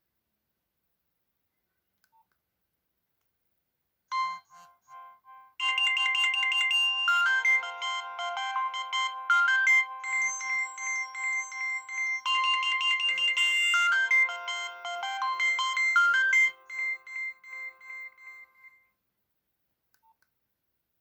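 Nokia 6030 polyphonic ringtone playing a melody of several notes at once. It starts about four seconds in with a few soft notes, goes to full level a second or so later, and stops a couple of seconds before the end.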